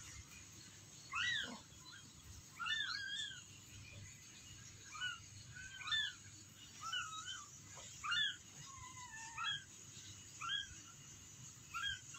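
Tiny newborn kitten mewing over and over: about a dozen short, high-pitched mews, each rising then falling, roughly one a second.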